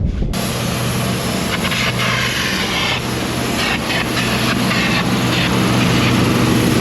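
Heavy equipment engine running steadily at a constant speed, growing slowly louder.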